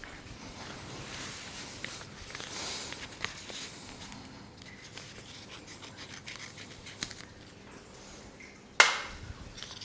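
Faint rustling and scratching of therapy tape strips being handled and prepared, with a few small clicks, and one sharp snap about a second before the end.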